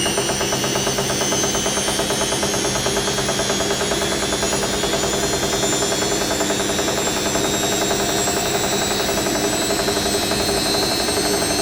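Hoover NeXtra HNL3146 front-loading washing machine in its final spin at about 800 rpm, the motor whining steadily and creeping slowly up in pitch over a fast, even pulsing of the turning drum.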